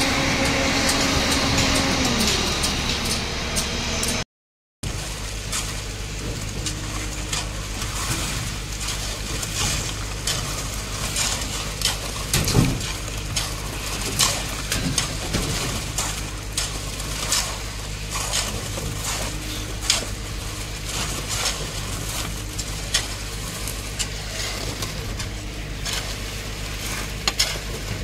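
Concrete pump engine running with a steady note that drops in pitch about two seconds in. After a short break, shovels scrape and slap wet concrete, with frequent sharp clinks, over a continuous low engine hum.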